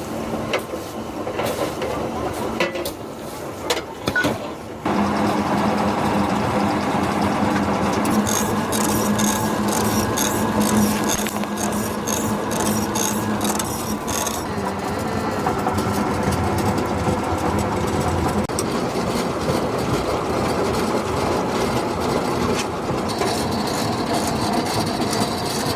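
Recycling-plant machinery running with a rasping, rubbing mechanical noise. About five seconds in it gets louder with a steady hum, and a run of quick, even clicks follows for several seconds.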